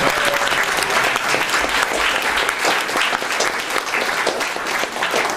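Audience applauding, many people clapping at once, easing off near the end.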